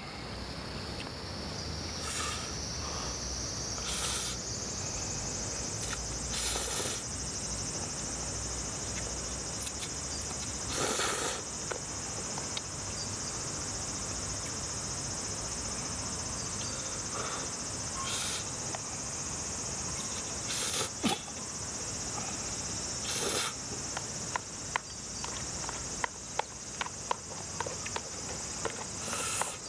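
A person slurping and eating yakisoba noodles with chopsticks from a plastic tub, in short bursts every few seconds, with light clicks of the chopsticks against the tub near the end. Underneath is a steady, high-pitched chorus of insects.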